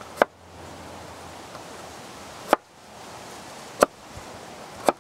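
WCSK prototype knife slicing baby red potatoes on a wooden board: four sharp knocks, irregularly spaced, as the blade cuts through and strikes the board.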